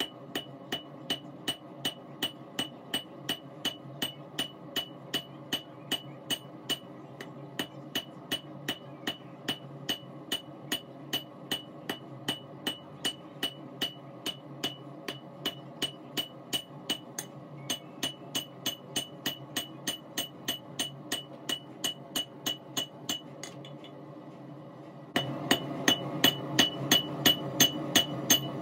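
Hand hammer striking a glowing-hot Damascus steel billet on an anvil in a steady rhythm of about three blows a second, each blow ringing off the anvil, as the twisted billet is hammered out flat. After a short pause near the end the blows resume, louder, over a steady rushing background.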